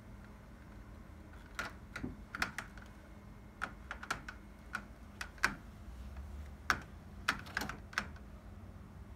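A cat's claws hooking into and pulling at the mesh of a screen door as it climbs and hangs on it: irregular sharp clicks, some in quick pairs and clusters.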